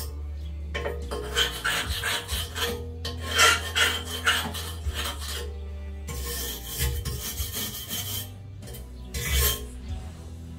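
Brush scrubbing rust off a steel truck step rail: rapid, uneven back-and-forth scratching strokes that ease off past the middle and pick up again near the end.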